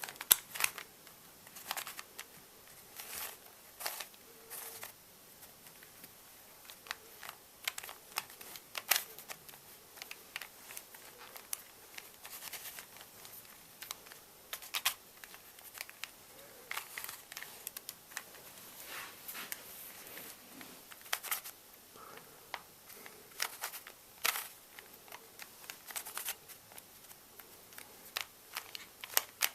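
A Rubik's cube being turned by hand: irregular plastic clicks and short clacking runs as its layers are rotated.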